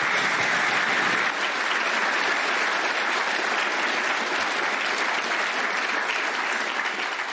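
Large audience applauding in a lecture hall, steady clapping that thins slightly near the end.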